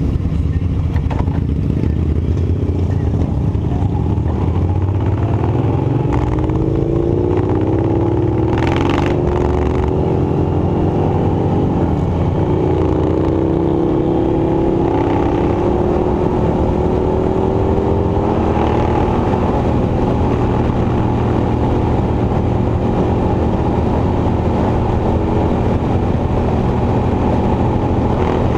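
Sawmill machinery running steadily with an engine drone, its pitch gliding up and easing off twice, about a quarter and half way through.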